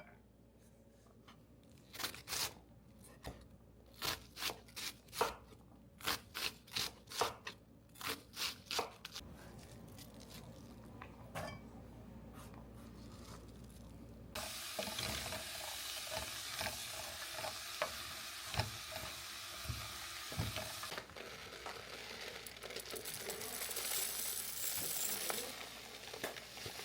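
Kitchen cooking sounds: a run of sharp utensil clicks and knocks, then from about halfway a steady sizzle of food frying in a pan, with occasional clinks, that grows brighter near the end.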